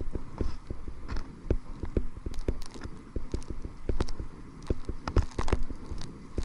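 Water slapping against a kayak's hull while paddling into wind and chop: irregular knocks and slaps, several a second.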